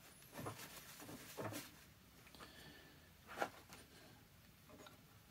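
Faint handling sounds, a few soft knocks and rubs, as a greased rubber drive-shaft seal boot is pressed by hand into a jet pump. The clearest knock comes about three and a half seconds in.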